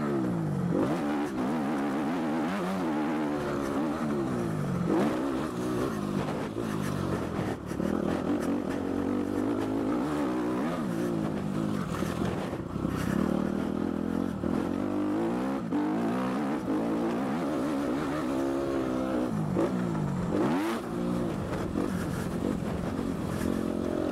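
Suzuki RM-Z250 four-stroke single-cylinder motocross engine heard from on board, revving up and dropping back over and over as the throttle is opened and shut around the track.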